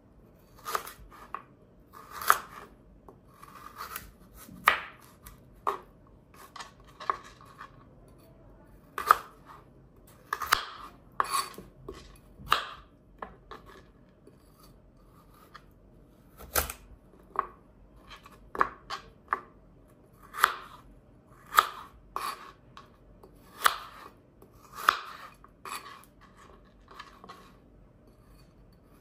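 Chef's knife slicing a raw carrot into sticks on a plastic cutting board: crisp crunches as the blade goes through the carrot, and taps of the knife on the board, about one stroke a second at an uneven pace.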